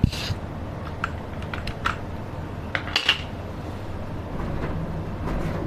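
Scattered hard plastic clicks and clatter of a mechanical keyboard and its keycaps being handled, with a pair of sharper clicks about three seconds in.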